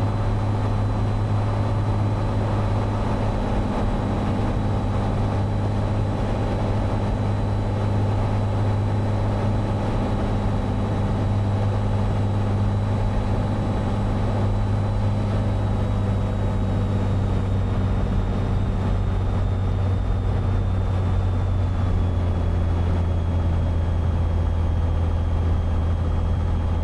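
Cessna 182's six-cylinder piston engine and propeller running steadily in flight, with the pitch easing down slightly in the second half.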